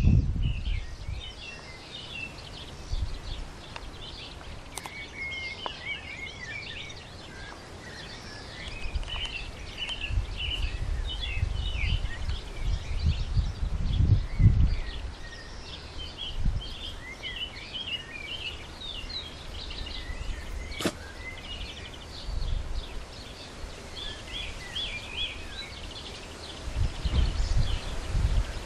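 Birds chirping and singing constantly in the background, with gusts of wind rumbling on the microphone, strongest around the middle and again near the end.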